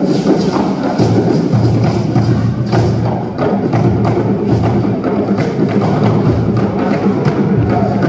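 Live traditional dance music led by percussion: drums and a sharp knocking beat keeping a steady, driving rhythm.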